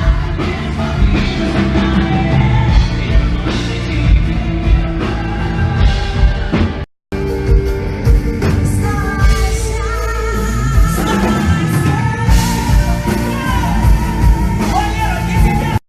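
Loud live pop-rock band music with singing. The sound cuts out completely for a moment about seven seconds in, then the music picks up again.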